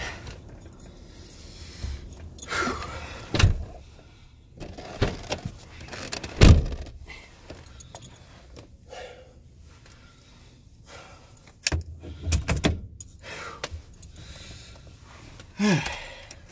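Handling noise inside a car: a racing harness being buckled, with clicks, knocks and rustling as a person settles into a bucket seat, and keys jangling. The loudest are a few sharp knocks, with a cluster of clicks late on.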